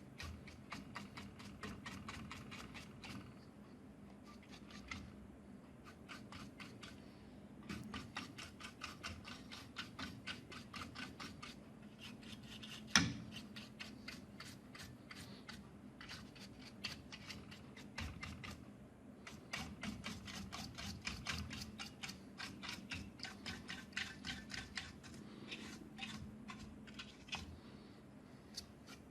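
Runs of rapid small clicks and scratches from handling work on a bench, with one sharp knock about 13 seconds in, over a faint steady hum.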